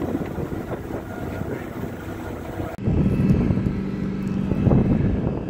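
Motorboat engine running under wind noise on the microphone; about three seconds in, an abrupt cut to louder low wind buffeting on the microphone with a steady low hum.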